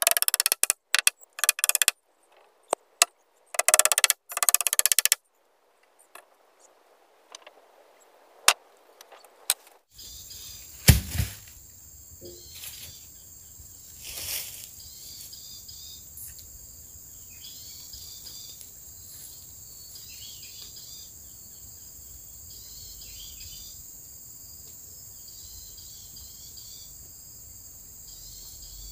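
Steady high-pitched chorus of insects, after about ten seconds of choppy, broken-up sound with sharp clicks. There is a sharp knock about eleven seconds in.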